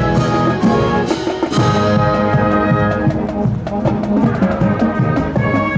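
A junior high school marching band playing a march in a parade: massed brass holding chords over drums, with sharp drum and cymbal strikes in the first second and a half, then a steady beat.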